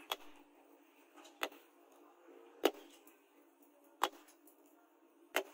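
Five sharp knocks, about one every 1.3 seconds, as a knife's hot tang is driven down into its wooden handle, smoking as it burns in.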